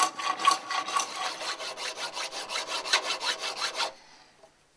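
Hacksaw cutting through a brass union held in a steel bench vise: quick, even back-and-forth strokes with a faint metallic ring, stopping about four seconds in.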